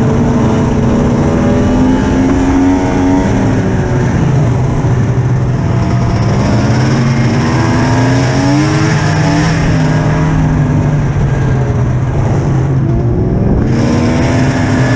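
Polaris Ultra RMK snowmobile's two-stroke engine running under way, its pitch rising and falling with the throttle.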